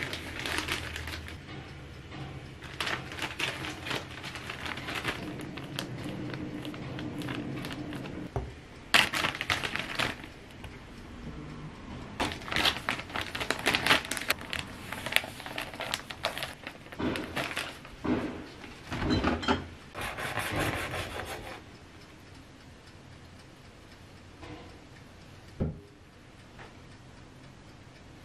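Plastic zip-top bag crinkling and rustling in irregular bursts as slices of bread are packed into it. Near the end it turns quieter, with a knife cutting into a thick slice of bread on a wooden board.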